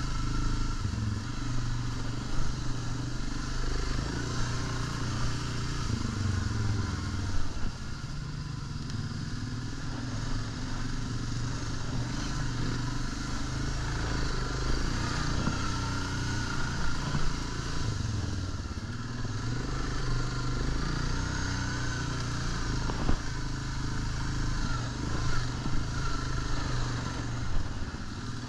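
ATV engine running steadily while riding a rough dirt trail, with a few sharp knocks and rattles from the machine going over bumps.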